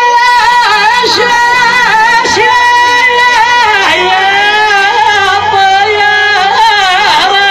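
Male rakrouki-style singing, melismatic and wavering in pitch, over Chaoui gasba reed flutes.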